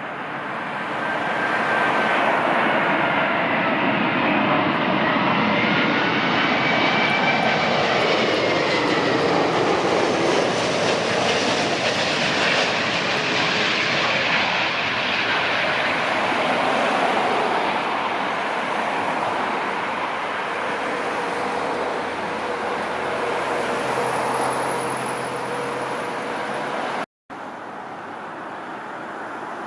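Heavy jet airliner passing close on its approach to land, the engine noise swelling about two seconds in. Whining tones slide down in pitch as it goes by, and the noise then eases off. The sound cuts out for a split second near the end.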